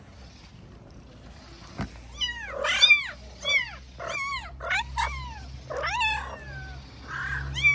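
Very young kittens mewing: a run of thin, high cries, each falling in pitch, about one or two a second, starting about two seconds in.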